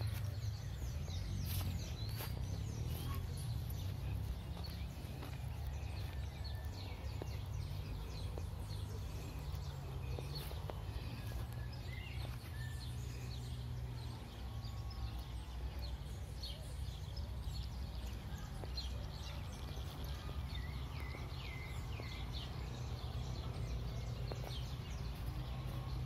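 Small birds chirping and calling, many short quick notes throughout, over a steady low rumble.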